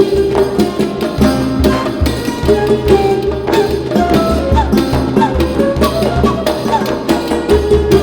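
Background music in a Middle Eastern style, with a steady hand-drum beat and a winding melody line.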